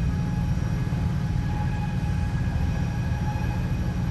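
Steady low rumble of heavy machinery, with faint steady whines above it.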